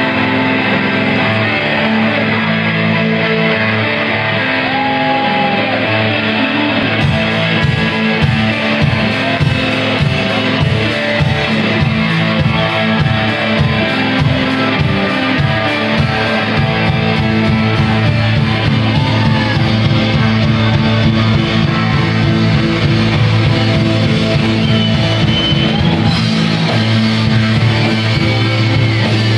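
Rock band playing live through a club PA, led by electric guitars holding sustained chords. A steady drum beat joins about seven seconds in.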